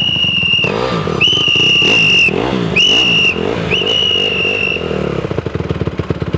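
A loud whistle blown in four blasts, the second the longest, over a dirt bike engine whose pitch rises and falls as it is throttled, settling into an even run about five seconds in.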